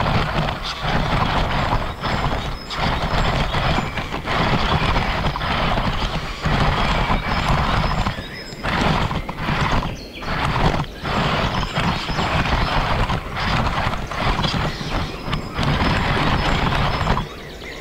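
Traxxas Summit RC truck driving off-road, its electric motor and drivetrain running in throttle bursts that cut out briefly several times, mixed with the noise of the tyres working over rough ground.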